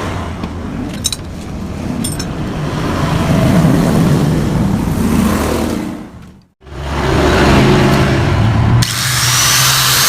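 Power tool running on the metal of a motorcycle exhaust muffler that is being hollowed out. The sound cuts out abruptly about two-thirds of the way through, then resumes with a high whine near the end.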